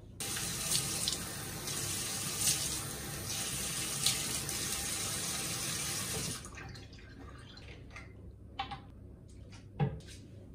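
Bathroom sink tap running while face wash is rinsed off, with a few louder splashes as water is scooped up; the tap shuts off abruptly about six seconds in. Two short knocks follow near the end.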